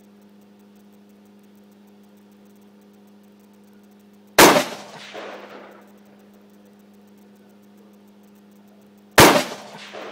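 Two shots from an AR-15 rifle in .223, about five seconds apart, each a sharp crack trailing off with an echo under a second later.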